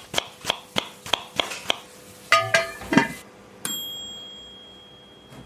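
Kitchen sound effects: rhythmic knife-chopping strokes, about three a second, then two pitched clinks and a thud, and a bright ding that rings on and slowly fades.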